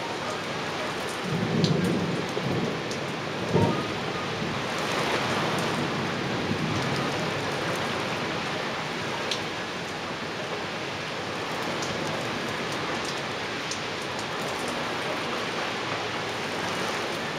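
Heavy downpour: dense rain pouring steadily onto roof tiles, with fine drop ticks throughout. A low rumble swells about two seconds in, and a short low thump comes near four seconds.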